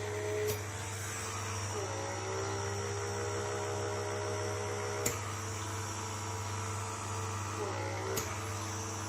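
Electric pore vacuum (blackhead suction device) running with a steady motor hum and whine. The pitch sags and recovers twice, and there are three sharp clicks.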